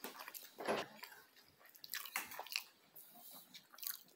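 A toddler biting and chewing a spicy beef patty: faint mouth smacks and crunches of the pastry, in irregular short clicks, with a louder one a little under a second in.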